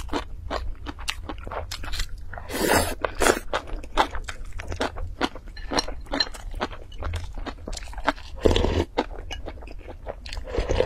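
Close-miked chewing of a soft white cake: wet mouth clicks and smacks several times a second, with a couple of short breathy rushes. Near the end, a sip of corn porridge from a spoon.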